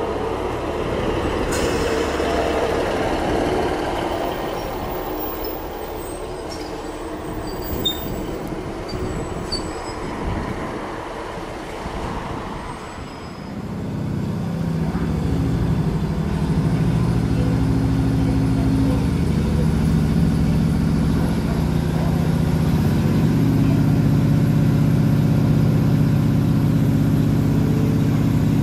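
A diesel multiple unit rolls out past a station platform, its wheels and underframe rumbling, with a few faint high squeals. About halfway through, the sound changes to the view from on board a train: its underfloor diesel engine drones steadily and grows louder in steps as the train pulls away.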